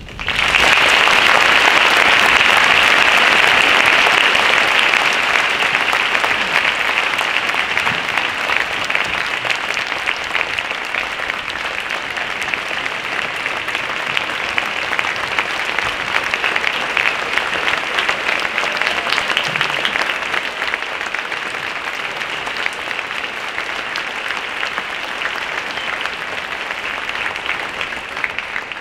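Audience applause that starts suddenly, is loudest for the first few seconds, then eases off a little and keeps going.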